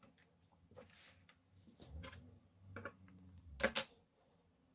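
Light handling noises: scattered small clicks and taps, with two sharper clicks in quick succession about three and a half seconds in.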